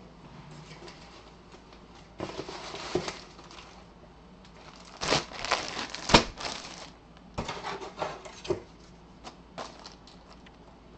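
Clear plastic bag around a football jersey crinkling and rustling in several irregular bursts as it is handled and set down, the loudest about six seconds in, with small clicks and taps after.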